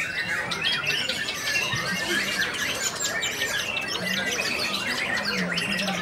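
White-rumped shama singing in a dense chorus of other caged songbirds: many overlapping chirps, trills and whistled phrases, with no pause.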